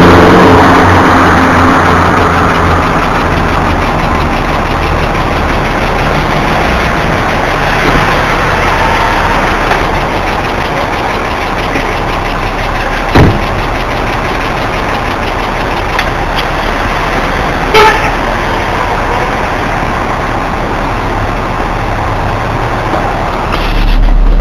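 BMW E46 323i inline-six engine running, its revs coming down to a steady idle over the first few seconds. A sharp knock comes about 13 s in and a short horn-like toot about 18 s in, and a loud low rumble builds near the end.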